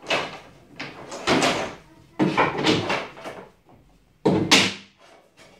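Dark laminated wooden bed-frame panels being handled and shifted during assembly: four loud knocking, scraping bumps of board against board.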